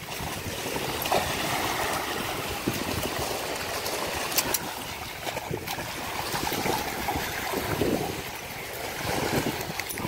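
Small waves washing onto a sandy shore, with wind rushing over the microphone.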